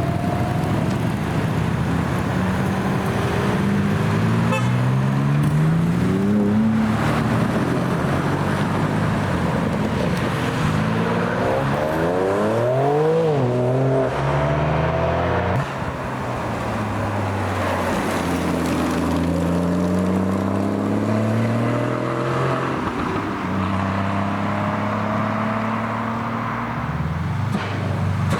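Several cars accelerating away one after another, each engine rising in pitch as it revs up through the gears, the loudest about halfway through, over steady road and tyre noise.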